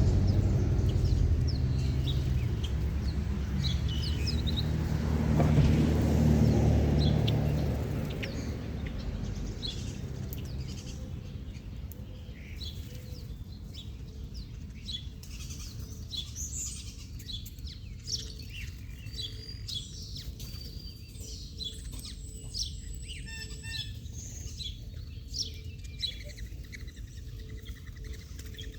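Small birds chirping in short, scattered calls, growing busier about halfway through. A low rumble underneath fades away over the first eight seconds or so.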